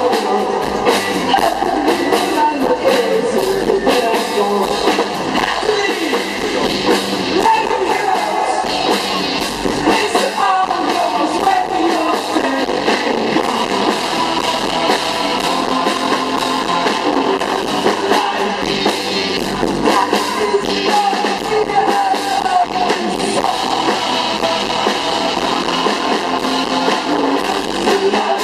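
Live band playing an amplified song: electric guitar with singing over it, sounding thin, with little bass.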